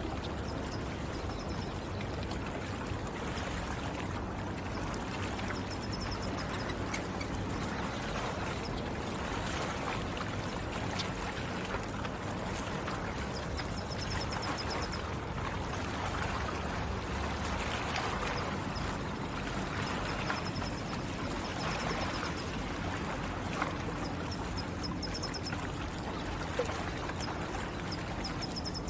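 Water trickling and lapping among stones at the shore, steady throughout, with a small bird's short, high trill repeating every few seconds.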